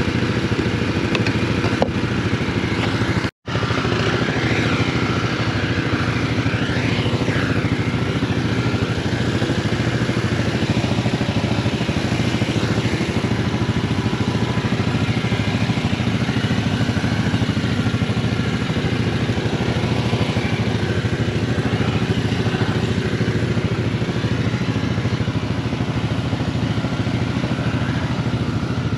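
Gas pressure washer's small engine running steadily under load, with the hiss of the water jet spraying. The sound cuts out for an instant about three seconds in, then carries on unchanged.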